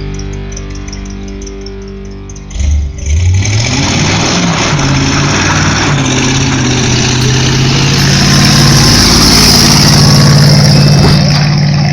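A vehicle engine revs up suddenly about two and a half seconds in, its pitch rising, then keeps running loud under background music.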